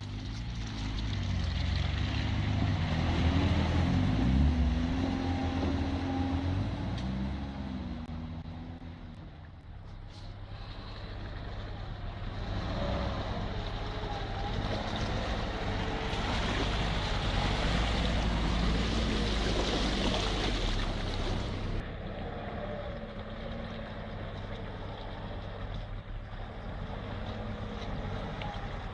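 Lada Niva's engine revving hard under load as it forces through a deep, water-filled mud rut. The revs rise and fall over the first several seconds, then the engine runs loud with a dense churning noise until that noise breaks off suddenly about two-thirds of the way in, leaving a steadier engine note.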